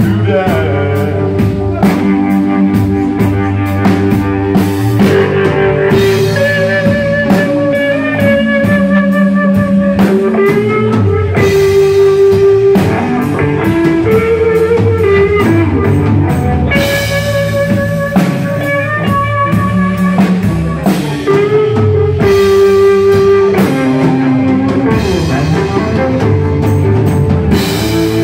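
Live blues-rock band playing loud: an electric guitar lead with held and bent notes over drum kit and bass guitar.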